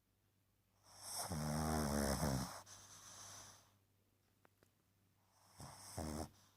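A woman snoring: a long snore about a second in that buzzes and then trails off into breath, followed by a second, shorter snore near the end.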